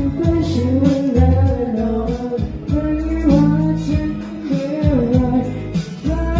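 Male voices singing a song live into handheld microphones over a backing track with held bass notes.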